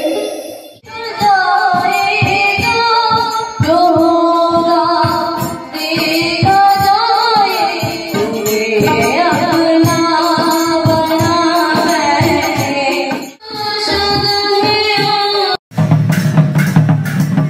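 Live singing with a hand drum and other accompaniment, heard through a PA sound system. The song breaks off and changes twice. About two seconds before the end it cuts abruptly to loud drum-led dance music with a heavy bass.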